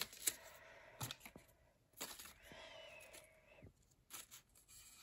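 Faint rustling and crinkling of paper as folded sheets are handled and pressed together, with scattered small taps and clicks.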